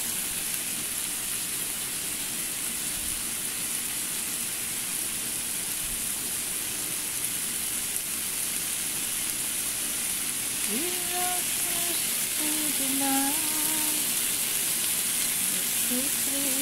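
Chicken breasts frying in a pan, a steady sizzle.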